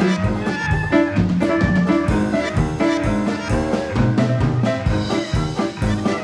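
Swing-style jazz music with brass instruments and a drum kit keeping a steady beat.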